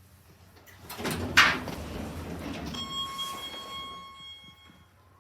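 Elevator doors sliding with a rumble and a sharp clunk about a second and a half in, then a steady electronic beep for about two seconds.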